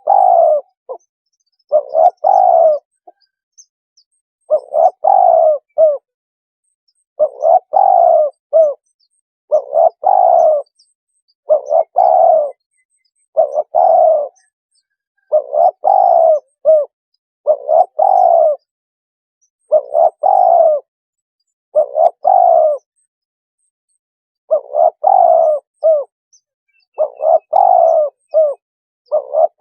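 Spotted dove cooing, played as a decoy call to lure doves in: short phrases of three or four coos, repeated about every two seconds with brief gaps between.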